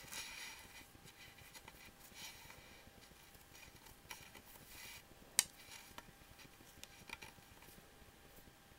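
Faint rustling and rubbing of friendship-bracelet strings handled by fingers as forward knots are tied and pulled tight, with a single sharp click about five and a half seconds in.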